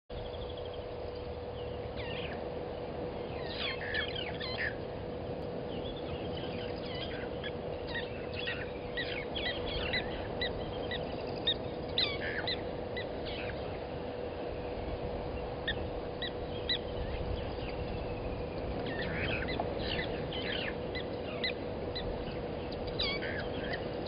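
Wild birds calling from several directions: many short chirps, whistles and brief glides, some clustered in quick runs, over a steady low hum.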